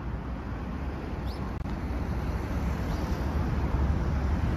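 Honda Rebel 500's parallel-twin engine idling steadily through an aftermarket slip-on muffler, a low even exhaust note.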